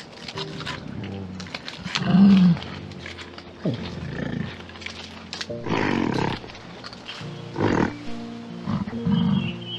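About five loud calls from a large animal, a second or two apart, over steady background music; the first, about two seconds in, is the loudest.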